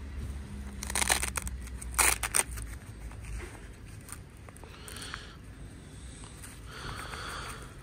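Handling noise as a motorcycle disc lock in its pouch is picked up and moved about: a few short rustling bursts about one and two seconds in, then softer rustling, over a low steady background rumble.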